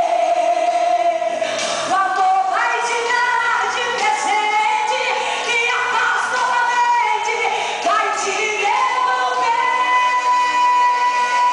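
A woman singing a gospel song into a microphone over backing music, holding long notes and sliding between them.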